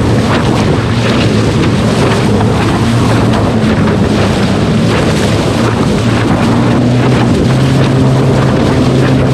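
Wind buffeting the microphone and water rushing past an electric SUP board under way, over a steady low hum from the Flipsky 65220 motor that steps up slightly in pitch about seven and a half seconds in.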